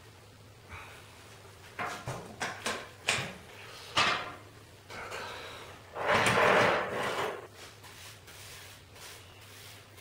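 Clinks and scrapes of a brush and metal parts inside a Koza K9 wood stove as ash is swept from the firebox, then a longer, louder scraping about six seconds in as the metal ash pan is slid out of the stove like a drawer.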